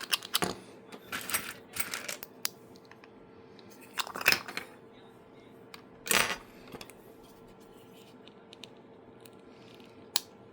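Small hard plastic parts being handled, clicking and clattering against each other: a few quick clicks at the start, then several short rattling bursts spaced a couple of seconds apart, and a single sharp click near the end.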